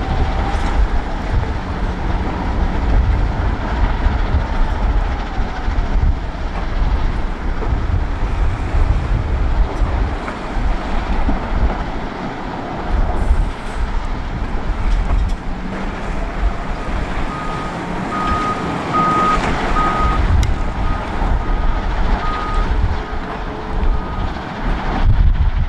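Heavy quarry machinery running: the diesel engine of a Volvo L350F wheel loader over the rumble of a rock crushing plant, with wind buffeting the microphone. In the second half a reversing alarm beeps steadily, a bit more than once a second, for several seconds.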